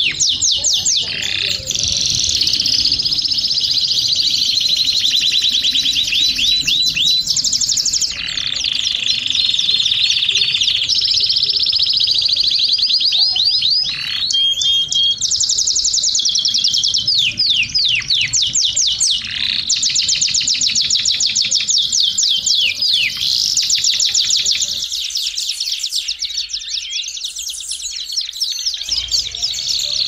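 Domestic canary singing a continuous song of fast trills and rolls, switching to a new phrase every few seconds.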